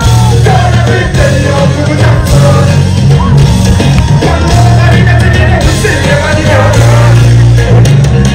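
Loud live concert music through the stage PA, with singing over a heavy bass line.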